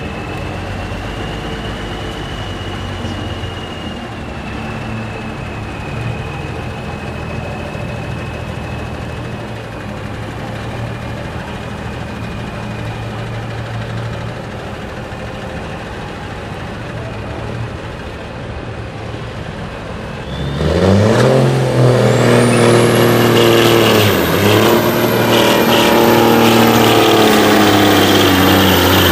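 Cabover semi truck's diesel engine idling steadily, then, about 20 seconds in, opening up to full throttle and revving hard as the truck starts its pull on the sled, with a high whistle climbing in pitch above the engine.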